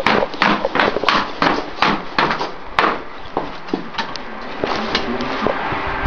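Quick, regular footsteps striking steel decking, about three a second, fading after about three seconds into a steadier background clatter.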